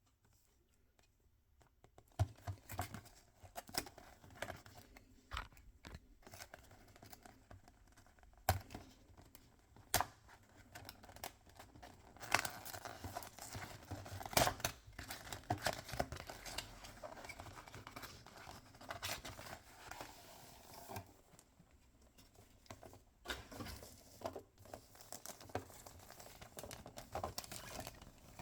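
Toy packaging being opened by hand: wrappers tearing and crinkling, with scattered sharp clicks. It starts about two seconds in, after near quiet.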